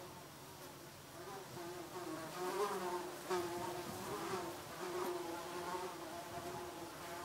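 Flying insect buzzing steadily, its hum wavering slightly in pitch and growing louder for a few seconds in the middle.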